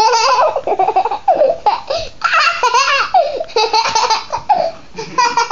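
A young boy laughing hard while being tickled: high-pitched peals of laughter in several runs with short breaths between them.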